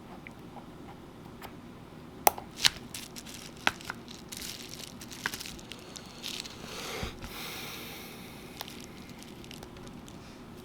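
Small handling noises while a precision screwdriver works the stuck bottom screws of an iPhone 7 Plus: a few sharp clicks of the tool and phone about two seconds in, then a longer crinkly rustle around seven seconds.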